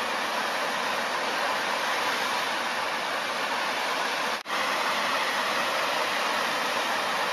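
Tall jet fountain spraying, its water falling back into the basin as a steady, even rush, with a momentary dropout a little over four seconds in.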